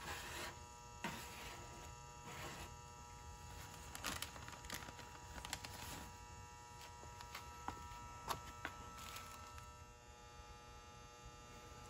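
A small knife scraping stripper-softened paint sludge off a car's fender panel, with the blade wiped on newspaper: faint, scattered scrapes and light clicks. The paint is only partly lifted by citrus stripper and is tough to remove. A steady electrical hum runs underneath.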